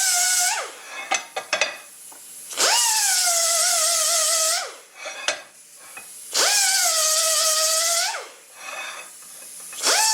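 A small high-speed power tool grinding down protruding screw heads in repeated bursts of about two seconds: each burst spins up with a rising whine, runs with a harsh grinding hiss, and winds down. A few light clicks fall in the gaps between bursts.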